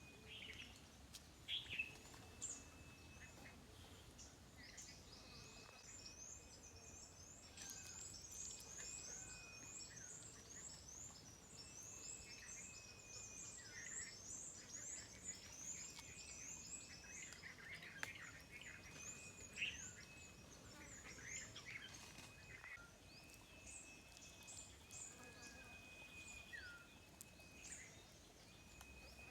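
Faint chorus of wild birds calling. A fast run of high, repeated chirps lasts about ten seconds, set among thin held whistles and short notes that swoop downward.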